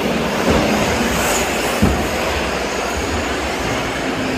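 Electric 1/8-scale off-road RC buggies running on an indoor track, a steady hiss of motors and tyres carrying through a large hall, with a couple of brief thumps.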